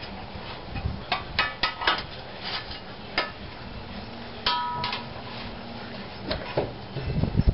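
Metal clinking and tapping: a quick run of sharp clinks about a second in, another about three seconds in, and one with a brief metallic ring about four and a half seconds in, as a wheel hub assembly is handled and worked into its tight-fitting bore in the steering knuckle.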